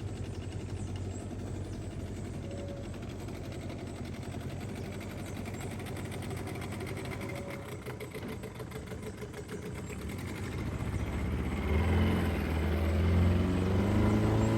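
Small boat motor running steadily at low speed, then speeding up from about eleven seconds in, getting louder with its pitch rising.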